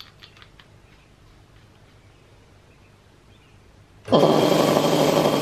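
Quiet with a few faint clicks, then about four seconds in a homemade belt-driven air compressor, run by a small electric motor, starts abruptly and runs loudly and steadily with a hiss of air.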